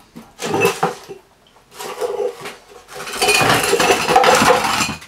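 Metal clanks from a Honda transmission case just pulled from the car as it is handled on the floor: a few sharp knocks, then a longer stretch of clattering and scraping from about three seconds in.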